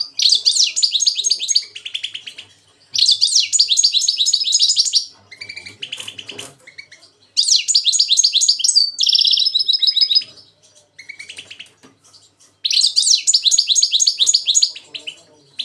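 Caged European goldfinches and a goldfinch–canary hybrid ('mixto') singing. Four loud runs of fast, twittering song, each about two seconds long, with shorter chirps in the gaps between them.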